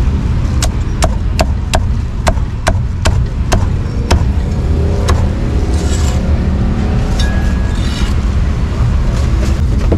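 A cleaver chopping pork on a round wooden block: about nine sharp chops, two to three a second, which stop about four seconds in. A steady low rumble of street traffic runs underneath.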